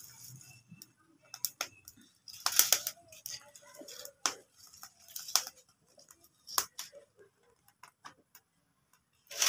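Cooking over a wood fire: scattered sharp clicks and light metallic clinks as roti is handled on an iron tawa beside steel bowls, with crackling from the burning twigs and a short rustle about two and a half seconds in.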